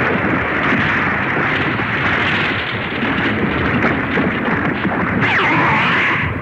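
Animated-series sound effect: a loud, continuous rushing, rumbling noise, with a few sliding tones over it about five seconds in.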